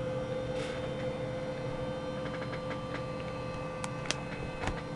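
A steady electrical hum, with a few light clicks and ticks from handling a card binder in the second half, the sharpest pair about four seconds in.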